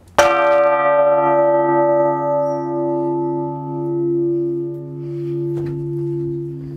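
Early-17th-century bronze church bell of Sigismund III Vasa struck once by hand, the clapper swung against its lip. It rings out with a bright spread of upper tones that fade over a few seconds, leaving a deep hum that swells and ebbs slowly.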